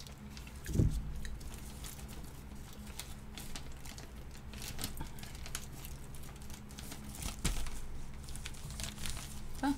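Clear plastic cookie bag crinkling and rustling as it is handled and pulled open by hand. There are irregular crackles throughout, and dull low thumps about a second in and again near the end.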